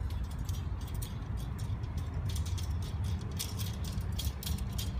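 Light metallic clicking and rattling as the metal whip of an MFJ magnetic-mount antenna is handled and fitted into its fiberglass section, the clicks coming thicker from about halfway through, over a steady low rumble.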